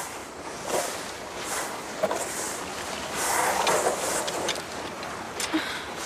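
Skis sliding over snow, a hissing swish that swells and fades several times.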